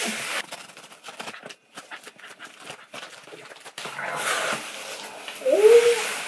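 Cardboard shipping box being opened by hand: crinkling and rustling of paper packing and box flaps, with a burst of tearing or scraping about four seconds in. Near the end comes a short high call that rises and falls.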